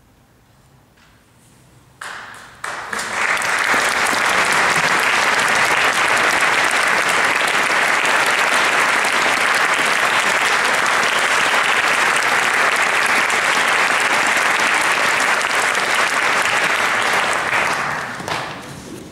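Audience applauding. The clapping starts about two seconds in, after a quiet stretch, holds steady and dense, then dies away near the end.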